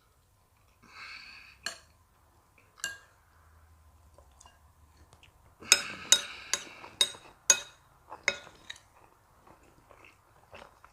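Cutlery clinking against a plate while eating: a few scattered clinks, then from about halfway a quick run of about eight sharp, ringing clinks.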